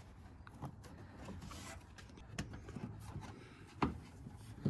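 Hands working the air filter inside its housing: soft rubbing and scraping with a few sharp clicks, the loudest about four seconds in.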